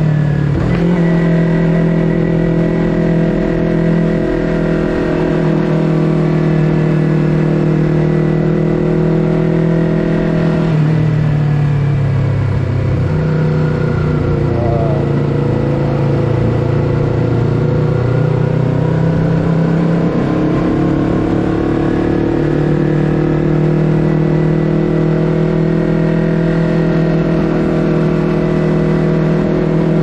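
Yamaha YZF-R3's parallel-twin engine running through an Akrapovic full-system exhaust while riding, holding steady revs. About eleven seconds in, the pitch falls as the bike slows, then it holds steady at lower revs.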